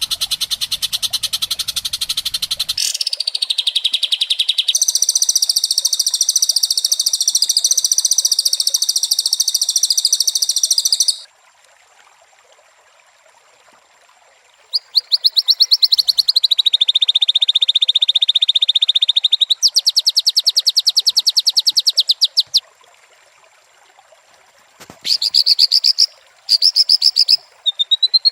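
White-rumped shama singing in long runs of rapid, rattling high-pitched notes. The first run lasts about eleven seconds and is followed by a short pause. Further rattling phrases come after the pause, and short bursts near the end.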